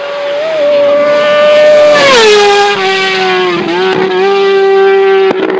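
Racing motorcycle at high revs passing close by. It is loudest about two seconds in, and its pitch falls as it goes past, then holds steady with a brief dip in the revs a little later.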